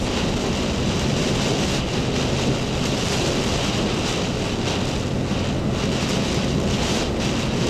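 Strong hurricane wind blowing hard across the microphone, a loud, steady rush of noise that swells slightly in gusts.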